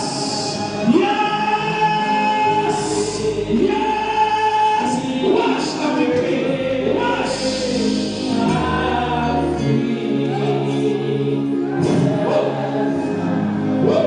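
Congregation singing a gospel song together, men's and women's voices.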